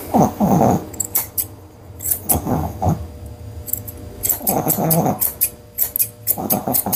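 Curved grooming scissors snipping in quick runs of small clicks as the face of a Yorkshire terrier is trimmed. Several short, falling low vocal sounds come between the runs of snips, which fit the Yorkie grumbling while its chin is held.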